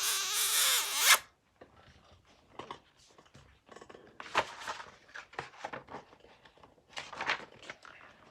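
A paper page rustling as it is turned, about a second long, followed by scattered short, soft rustling or breathy sounds.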